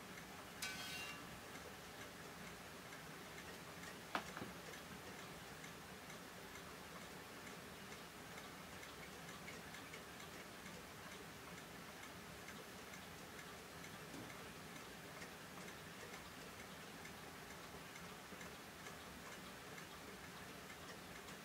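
Quiet room with faint, steady ticking. A short sound comes about half a second in, and a single sharp click at about four seconds.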